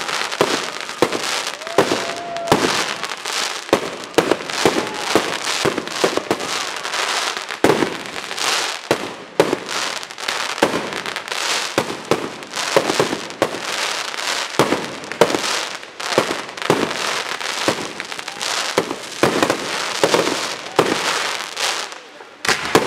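Professional fireworks display: aerial shells bursting in rapid succession, with crackling from glittering stars between the bangs. The bangs ease off briefly near the end.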